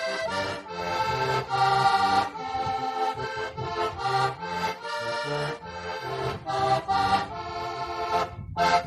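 Heligonka, a Slovak diatonic button accordion, playing a folk tune in chords over bass-button notes, closing on a short final chord that stops abruptly near the end.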